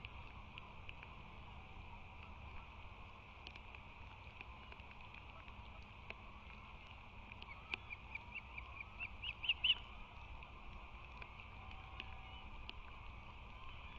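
Osprey calling: a run of short, high chirps about halfway through, coming faster and louder for about two and a half seconds before stopping. Under it is a steady low rumble.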